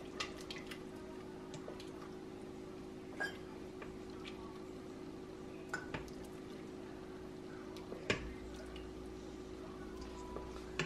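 Sliced peaches in syrup being stirred in a stainless steel pot: faint wet stirring with a few light clinks and taps against the pot, over a steady low hum.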